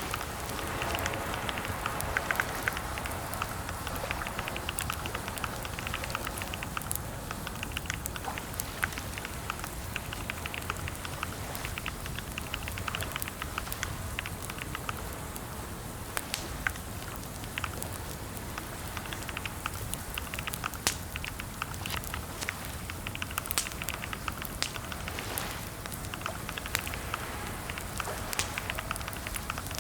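Computer keyboard typing: keys clicking in quick runs with short pauses between them.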